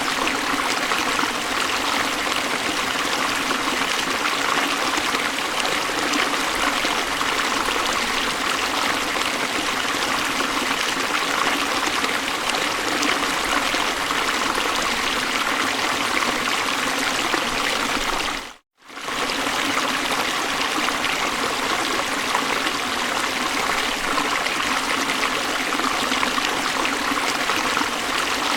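Steady rush of river water flowing over falls, an even unbroken noise. It cuts out completely for a split second about two-thirds of the way through, then resumes unchanged.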